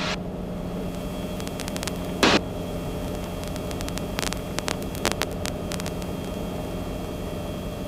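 Steady in-flight drone of a Cabri G2 helicopter's piston engine and rotors heard inside the cockpit, a constant hum with no change in pitch. A single sharp click comes a little over two seconds in, and a few faint ticks follow around four to five seconds in.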